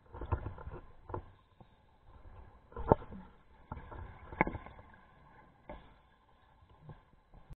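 Muffled underwater noise of a scuba dive: irregular knocks, clicks and bubbling rustles picked up through the camera's underwater housing, with two sharp clicks about three and about four and a half seconds in.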